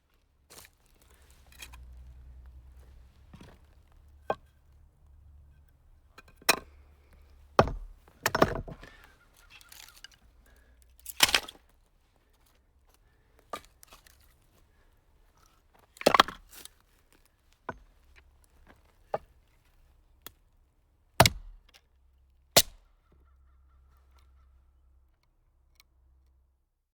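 Firewood being split: about fifteen sharp chops and cracks as the blade strikes and the wood breaks apart, spaced irregularly one to three seconds apart.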